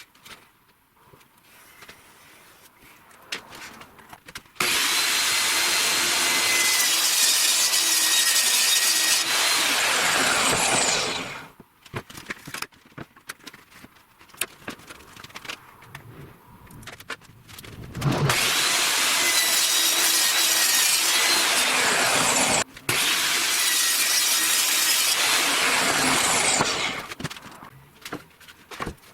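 Electric power saw cutting oriented strand board (OSB) in two long cuts, each ending with the motor winding down in a falling whine. Light handling knocks come between the cuts.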